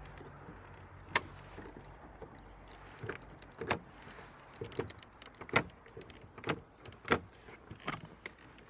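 Irregular sharp clicks and knocks, about a dozen over several seconds, from the door handle mechanism inside a car door as its loose cable is being refitted.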